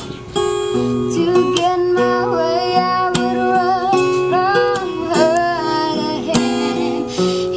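Background music: a strummed acoustic guitar with a voice singing a melody.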